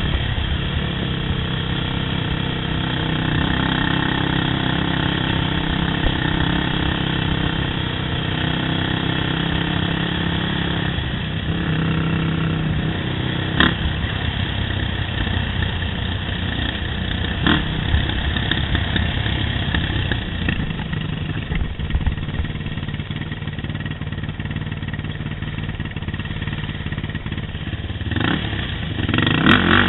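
Yamaha YFZ quad's engine running steadily as it rides a trail, with a couple of sharp knocks from the ride partway through. The engine note rises near the end as the throttle opens.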